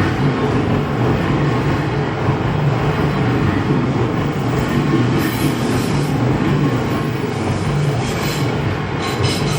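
An Odakyu Odawara Line electric train running over a level crossing: a loud, steady rumble of wheels on the rails.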